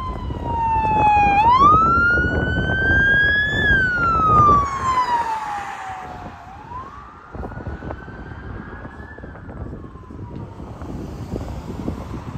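Police SUV's electronic siren on a slow wail, its pitch sweeping down and up about every five seconds. It is loudest in the first few seconds as the vehicle passes close with engine and tyre noise, then grows fainter as it drives away.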